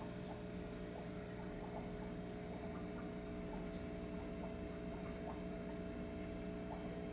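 Steady hum of running aquarium equipment, made of several constant tones, with faint irregular ticks from air bubbles in the tank.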